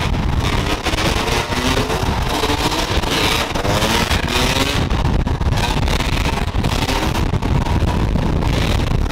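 Several dirt bike engines revving, their pitch rising and falling as the riders hold wheelies through a road tunnel, over a steady low rumble.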